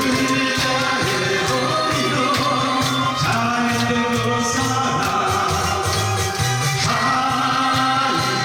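A song being performed: held sung or melodic notes changing every second or so over a steady drum beat.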